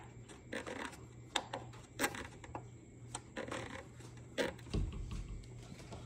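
African grey parrot making a scatter of short beak and tongue clicks over a faint steady hum, with a dull low thump about five seconds in.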